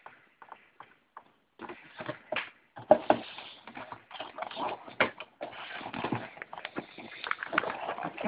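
Handling noise from a handheld camera: irregular rustling and scattered clicks, with one sharp click about three seconds in.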